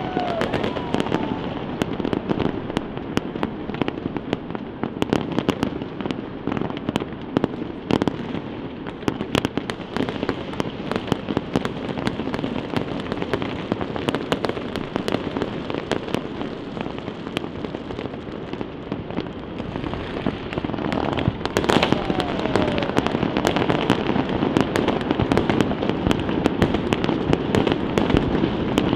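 Aerial fireworks bursting, a dense continuous run of sharp bangs and crackles, several a second, over a steady background haze of echoing reports.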